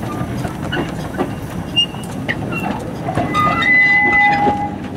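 600 mm narrow-gauge goods wagons rolling past on the rails with a steady rattling clatter of wheels and couplings. From about three seconds in, a high squeal of wheels on the rails rides over it for a second and a half.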